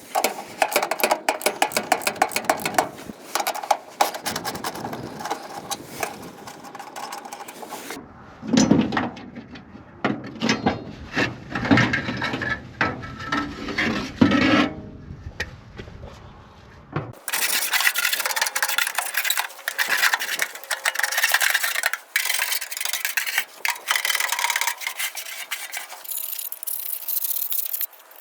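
Scraping and rubbing as a sheep feeder is cleaned out by hand, with many small knocks and clicks. The sound changes abruptly a few times.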